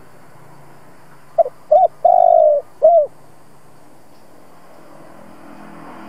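Spotted dove cooing its phrase once: two short coos, a longer held coo, then a short closing coo, about a second and a half in all, over a faint steady background hum.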